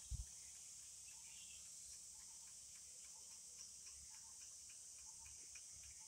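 Faint, steady high-pitched drone of forest insects, with many faint short chirps and ticks scattered through it.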